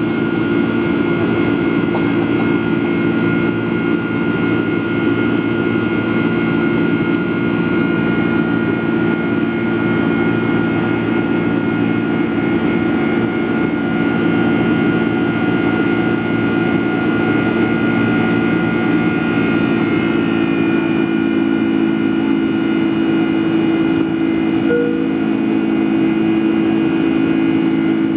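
Boeing 747 jet engines heard from inside the passenger cabin during the climb after takeoff: a loud, steady drone with humming tones through it. Some of the higher tones shift slightly about twenty seconds in.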